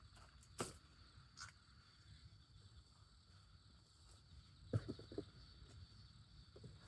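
Quiet outdoor ambience with a faint, steady high insect chirr. It is broken by two single sharp clicks in the first second and a half, and a short cluster of knocks about five seconds in.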